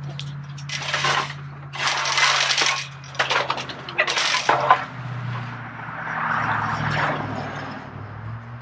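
A long wooden board scraping and rattling against chain-link fencing as it is handled, in four short rasping bursts followed by a softer rustle. A low steady hum runs underneath.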